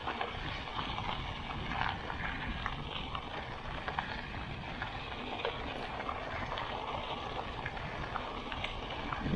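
Mountain bike tyres rolling over a loose gravel path: a steady crunching with many small clicks and rattles, over a low rumble of wind on the microphone.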